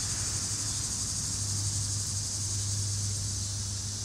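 Steady high-pitched hiss with a constant low hum underneath, with no distinct knocks or tool sounds.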